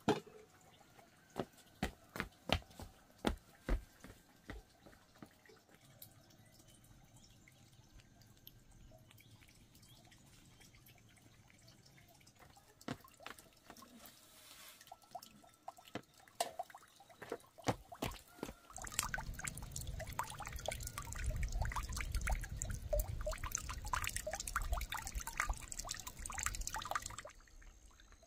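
Scattered drips and clicks of water, then, about two-thirds of the way in, a louder dense spell of splashing and pouring water that stops abruptly shortly before the end.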